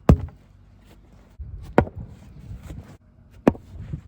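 Three sharp knocks about a second and a half apart, with low rumbling and shuffling between them.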